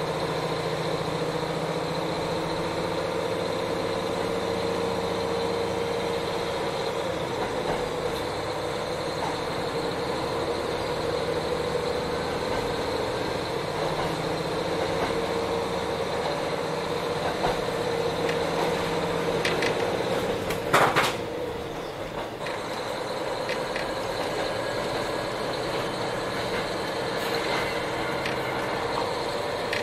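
KiHa 40 diesel railcar running, heard from inside the car: a steady diesel engine drone with wheel and rail noise. About two-thirds through comes a short loud burst of noise, after which the engine note drops away and the running noise carries on a little quieter.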